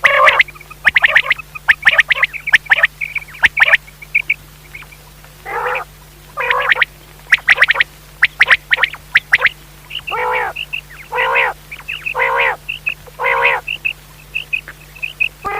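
Common quail calling over and over: quick clusters of short, sharp notes and brief high whistled notes, mixed with several longer, lower harsh calls of about half a second each. A faint steady hum lies underneath.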